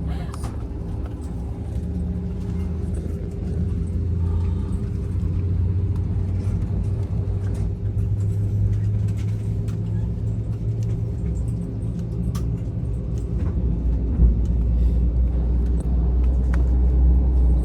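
Low, steady rumble and hum inside an airliner cabin on the ground before takeoff, with a few faint clicks and a short thump about fourteen seconds in.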